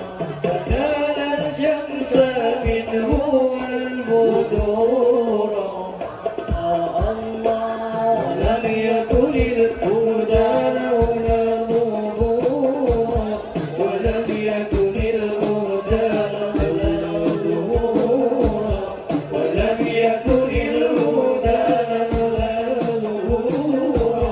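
Male voices singing an Islamic devotional song (sholawat) into microphones, over hadrah frame drums (rebana) beating a steady rhythm.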